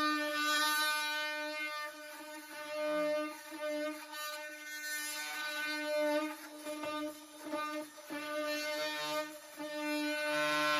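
Metabo HPT 18V cordless oscillating multi-tool cutting into a wooden window header: a steady, high buzz that swells and dips as the blade is pushed into the wood and eased off.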